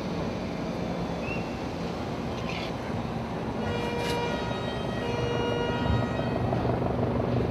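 Helicopter drone over street noise, growing louder toward the end. In the middle a steady pitched tone sounds for about two and a half seconds.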